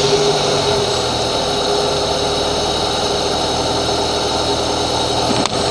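Honda Accord Cielo engine idling steadily just after being started.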